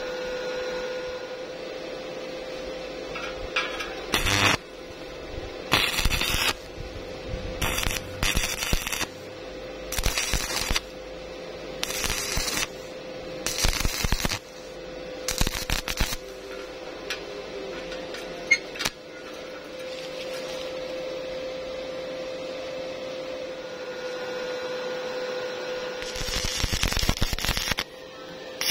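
Stick-welding arc from an inverter welder running a 2.6 mm E6013 rod at 80 amps, crackling in short bursts of under a second several times, then a longer run of about two seconds near the end. A steady hum sounds underneath.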